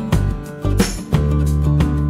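Background music, with a new note struck about every half second.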